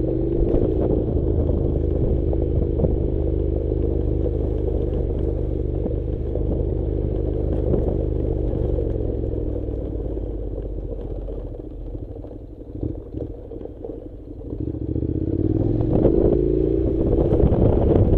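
Honda NC700's parallel-twin engine running at low speed on a loose gravel track, with clatter and rattles from the stones and the bike. The engine note eases off and quietens for a few seconds past the middle, then picks up again near the end.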